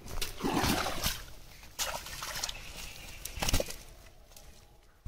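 Freshly caught carp thrashing inside a wet cast net on muddy ground: irregular wet slaps and rustles of the mesh. The loudest bursts come about half a second in and at about three and a half seconds, and the sound dies down near the end.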